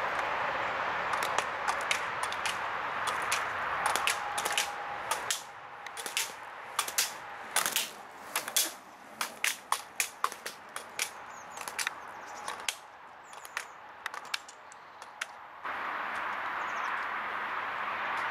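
An irregular, rapid series of sharp clacks as an inline slalom skater knocks the slalom poles on the way down the course, over a steady outdoor background noise that drops away while the clacks come and returns near the end.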